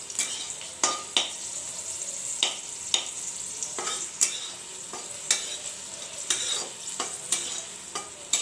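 Garlic frying in hot oil in a kadai with a steady sizzle, while a spatula stirs it, scraping and knocking against the pan about a dozen times at uneven intervals. The garlic is being fried until it turns red.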